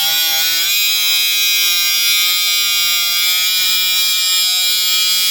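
Battery-powered angle grinder cutting through a one-inch-thick solid steel bar: a steady loaded motor whine that wavers slightly in pitch, over a high grinding hiss from the disc on the steel.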